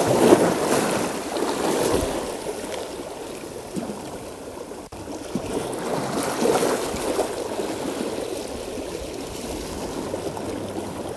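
Rough seawater washing and sloshing in uneven surges, with the loudest swells at the start and again about six seconds in.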